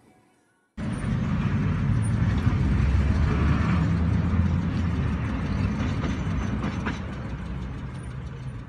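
Vehicle engine and road noise picked up by a dash cam: a loud, steady low rumble that starts suddenly about a second in and eases off toward the end.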